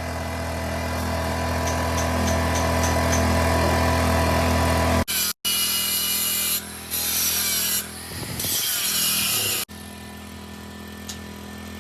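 A power tool working metal, in several short clips cut together. The first part holds a steady electrical hum under noisy grinding, and the later clips have a sharper high-pitched hiss.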